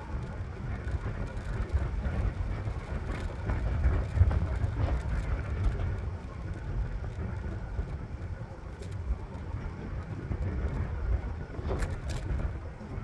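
Wind rushing over the microphone and the low rumble of an electric scooter's small wheels rolling over asphalt, with a few light clicks near the end.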